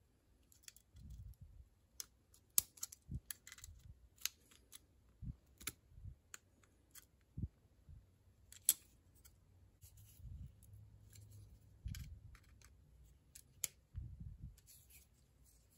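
Light, irregular metallic clicks and ticks of pliers on small steel parts, fitting the washers and cotter pin on a Ford flathead distributor's breaker plate, with a screwdriver tapping on the plate near the end.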